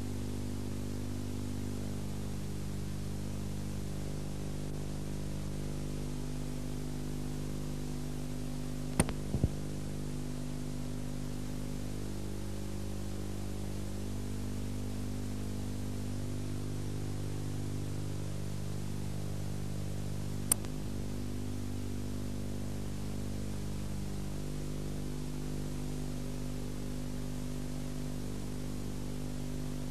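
Steady electrical hum under a hiss of tape noise from an old videotape soundtrack, with a quick cluster of sharp clicks about nine seconds in and a single click around twenty seconds in.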